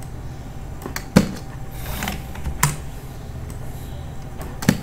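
A handful of short, sharp clicks from working a computer, scattered unevenly with the loudest about a second in, over a steady low hum.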